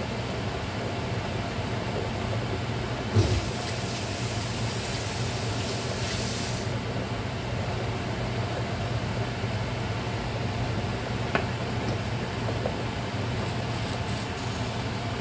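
Large pot of water at a rolling boil, a steady bubbling noise over a low hum. About three seconds in there is a knock, followed by a few seconds of high hissing.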